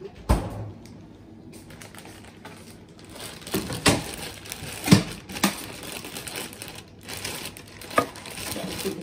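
A sharp knock at the start, then a plastic bag crinkling and rustling as it is handled, with several sharp clicks and taps.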